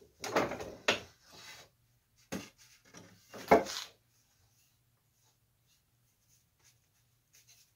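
Wooden knocks and scrapes as a clamping board and a carved wooden candlestick are handled on a workbench: a cluster of clunks and rubbing in the first second, then two sharp knocks about two and a half and three and a half seconds in, the second the loudest, then a few faint ticks.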